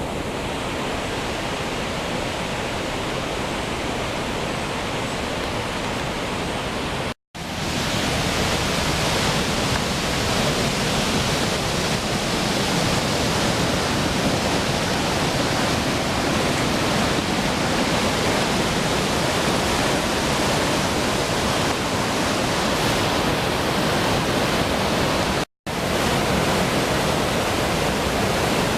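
Water of a waterfall pouring and splashing: a loud, steady, even rush of noise. It cuts out completely for an instant twice, about seven seconds in and near the end, and is a little louder after the first gap.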